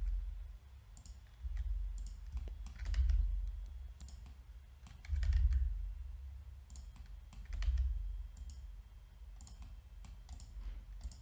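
Scattered clicks of a computer mouse and keyboard keys, with a few dull low bumps in between.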